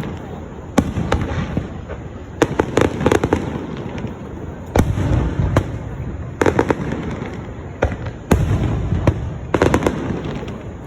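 Aerial fireworks going off: sharp bangs roughly every one to two seconds, some in quick pairs, over a continuous low rumble and crackle.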